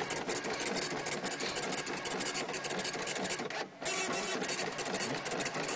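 OKI dot-matrix printer printing its menu settings list onto continuous tractor-feed paper: a fast, even rasping rattle of the print head, with a short break a little past halfway through.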